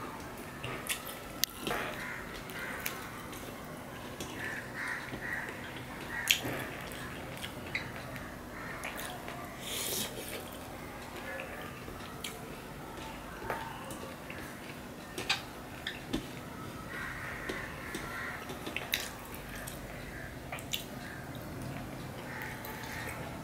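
Eating by hand from a stainless steel plate: wet squishing as fingers mix curry and rice, chewing and mouth smacks, and scattered sharp clicks of fingers against the plate, over a steady low hum.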